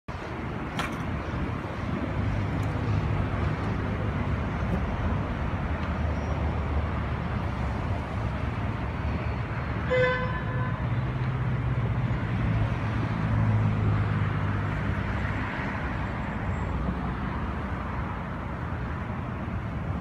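City traffic noise: a steady low rumble of cars, with a short car horn toot about halfway through.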